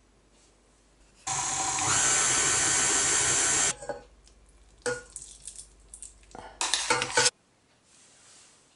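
Stand mixer motor running as its dough hook kneads a heavy dough, with a steady whine that steps up in pitch shortly after it starts. Then a spoon clinks and scrapes against a metal bowl, and the mixer runs again briefly near the end.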